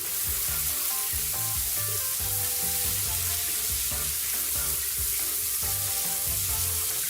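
A steady hiss, over background music with a bass line and short held notes.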